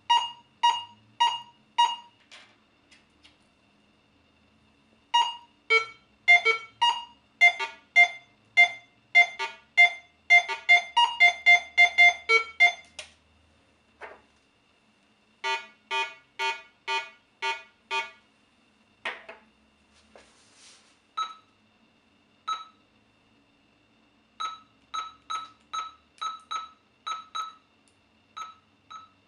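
Minelab Go-Find 60 metal detector sounding its target tones: runs of short electronic beeps, a few per second, in separate groups with pauses between them. The pitch changes from one group to the next: a higher tone for some targets, a lower one for others, the detector telling apart different metals passing over its coil.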